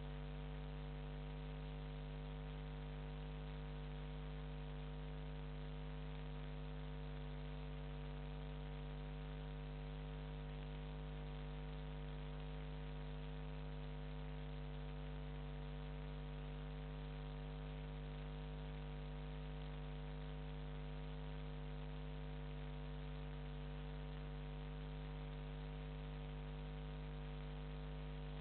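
Steady electrical mains hum, a low drone with a stack of overtones over a constant hiss. It does not change at any point.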